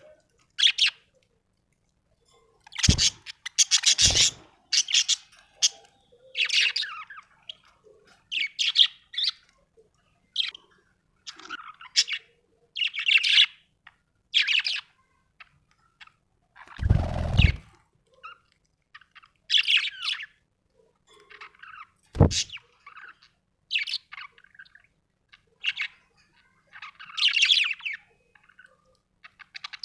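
Budgerigar chirping and chattering in quick short bursts throughout, with a few dull thumps, the longest about two-thirds of the way in.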